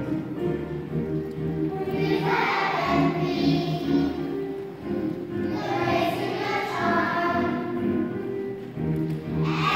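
A choir of young children singing a pop song together over instrumental accompaniment, the sung phrases coming and going over the steady music.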